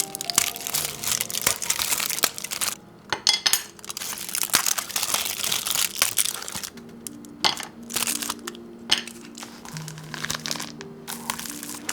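Crinkling and rustling in irregular spells, with short pauses, over soft background music with held notes.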